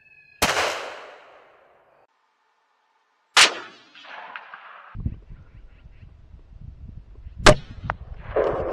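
Three rifle shots fired at coyotes, each a sharp crack. The first two trail off in a rolling echo, and the third is followed a moment later by a smaller smack. Wind rumbles on the microphone during the last shot.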